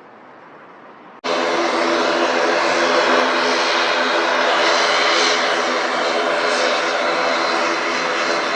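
Airliner engines running loud and steady, many steady tones over a rushing noise. The sound cuts in abruptly about a second in, after a faint quiet stretch.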